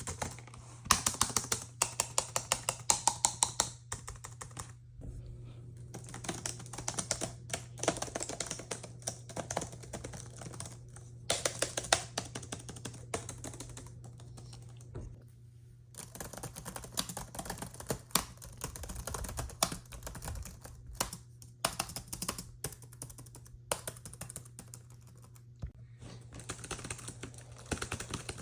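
Typing on a laptop keyboard: fast runs of key clicks in bursts, with short pauses between them, over a steady low hum.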